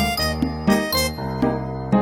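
Background music: a bright, chiming melody of short plucked or struck notes over a bass line, with a new note every few tenths of a second.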